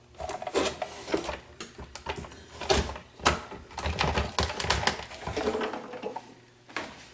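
Irregular plastic clicks, knocks and scraping as a Samsung refrigerator's ice-maker fan and auger assembly is worked loose and slid out of its housing. The clicks thin out near the end.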